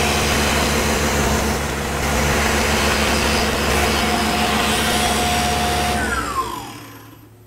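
Tormach PCNC mill with its spindle running and an end mill cutting a pocket into a rifle stock, a steady loud machining noise. About six seconds in the spindle winds down with a falling whine and the sound fades away as the cut ends.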